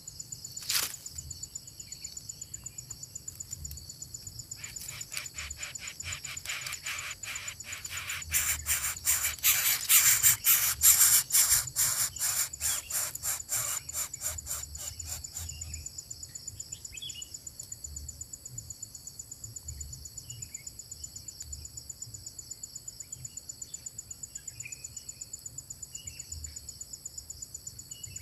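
Steady high-pitched insect drone. A sharp click comes just under a second in, then a rapid pulsing call of about four pulses a second swells and fades over about ten seconds, with scattered short bird chirps after it.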